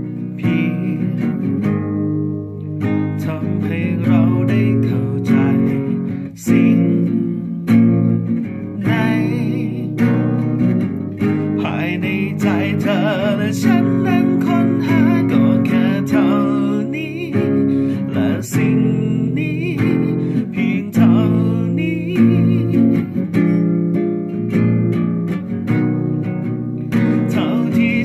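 Acoustic guitar strummed and picked in an instrumental passage of a song, in a steady rhythm.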